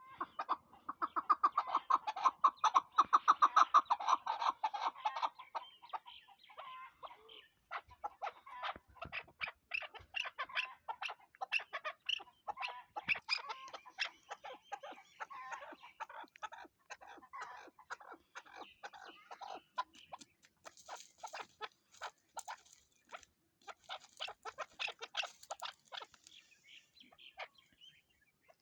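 Chukar partridge calling: a fast series of loud clucking notes for about the first five seconds, then a long run of quicker, quieter chuck notes.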